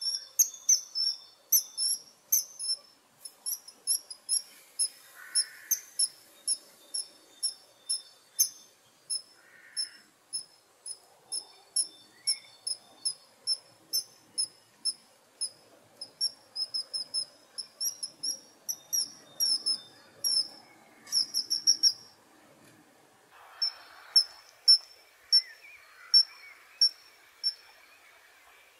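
Kingfisher calling: a long series of short, shrill, high-pitched notes, about two a second, with a few quicker runs and a short pause near the end.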